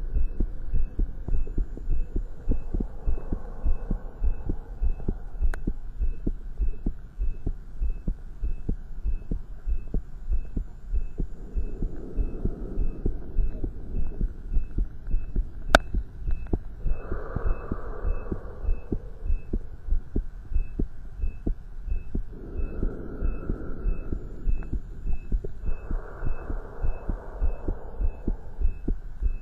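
Heart sounds heard through a stethoscope during exercise: a fast, steady heartbeat of closely spaced low thumps. A faint high beep repeats at a steady rate alongside, and several stretches of rushing noise come and go over the beats.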